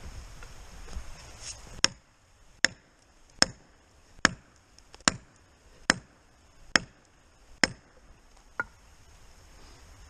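Axe blows, nine sharp strikes at an even pace of about one every 0.8 seconds, the last one lighter.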